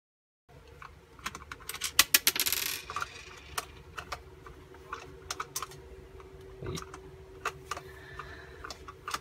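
Irregular clicks and taps of small hard objects being handled, starting about half a second in, with a denser clatter about two seconds in, over a faint steady hum.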